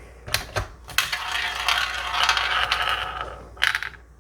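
Small ball spun around a toy roulette wheel, rattling and clicking as it runs round, then a couple of last clicks near the end as it drops into a numbered slot.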